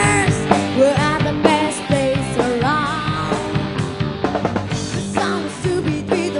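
A live band playing a rock-style song, with a woman singing lead into a microphone over a drum kit and the band.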